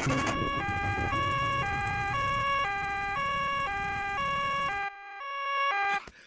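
Cartoon ambulance two-tone siren going nee-naw, switching between a high and a low tone about twice a second, over a low vehicle rumble. The rumble stops about five seconds in and the siren cuts off shortly after.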